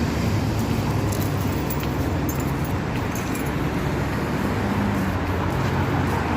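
Steady road traffic noise with a low engine hum, and faint light clicks and jingles over it.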